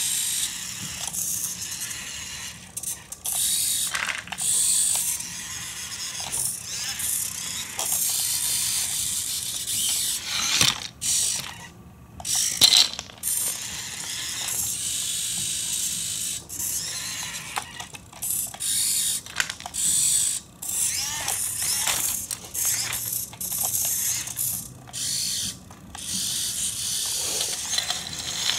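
Electric drive motors and plastic gearing of a Siku Control radio-controlled model tractor with front loader, whirring in repeated start-stop runs as it drives and raises and lowers its loader bucket, with occasional clicks.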